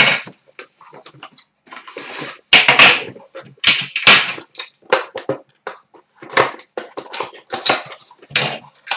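Shrink wrap being cut and torn off an Upper Deck The Cup hockey card tin, with crinkling, scraping and knocks of the tin on the counter in irregular bursts.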